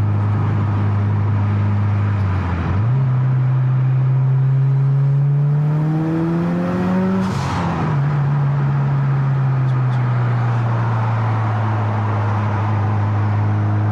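Turbocharged Subaru flat-four engine with a catless downpipe, under way. It runs steadily at low revs, dips briefly about two and a half seconds in, then the revs climb for about five seconds. A short rush of noise comes at the top, then the revs drop and ease slowly back down.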